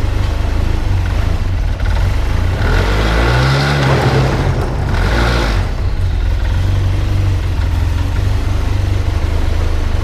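Arctic Cat Z1 snowmobile's four-stroke twin engine running, revved up once about three seconds in and settling back to a steady run a couple of seconds later.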